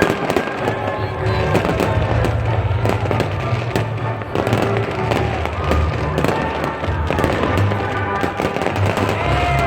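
New Year's fireworks and firecrackers going off in rapid, overlapping bangs and crackles, over waltz music with a steady bass.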